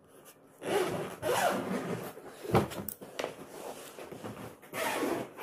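Zipper of a soft fabric suitcase being pulled open, in uneven runs, with a knock partway through as the case is handled.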